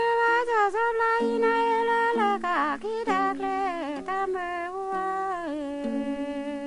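Bamboo tube zither (paplaw) plucked in a repeating pattern of low notes, with a sung melody that glides and wavers over it.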